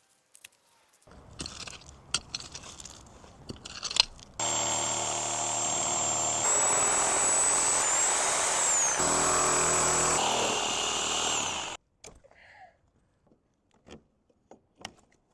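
Reciprocating saw (Sawzall) running and cutting, a loud steady buzz lasting about seven seconds that stops suddenly. Before it, a few seconds of handling and rustling with a few light knocks.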